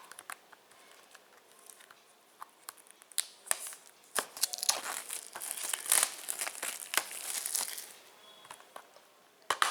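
Plastic shrink-wrap being torn and peeled off a Blu-ray case, crinkling and crackling in irregular bursts that are busiest through the middle, with one sharp click near the end.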